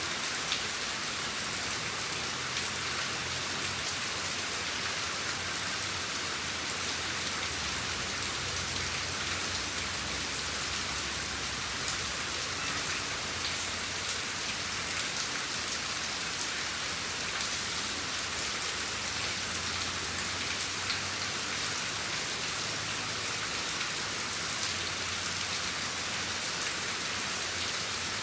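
Steady rain falling and pattering on a surface, with many small drop ticks and a faint low rumble underneath.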